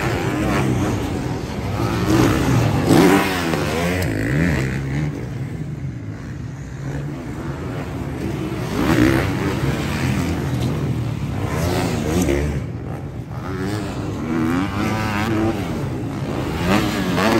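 Motocross bikes' engines revving on a dirt supercross track, the pitch climbing and dropping over and over as riders open and close the throttle through the jumps and turns, with more than one bike running at once.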